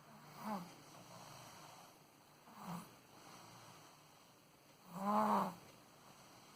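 A sleeping 13-month-old baby snoring: three short snores about two and a half seconds apart, the third the loudest and longest. Soft breathing hiss between them.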